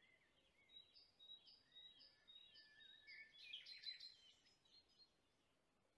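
Faint birds chirping: many short, quick calls, busiest about three and a half to four seconds in, then cutting out about five seconds in.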